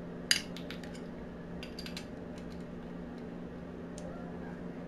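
Small metallic clicks and clinks of hand tools: a chrome socket on a universal joint being fitted onto a bolt head held in locking pliers. One sharper click about a third of a second in, then scattered light clicks, over a faint steady hum.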